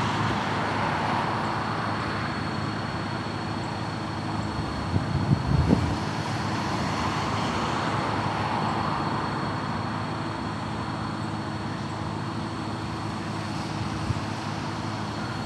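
CSX freight train's diesel locomotives approaching, a steady low drone, with a brief low rumble about five seconds in.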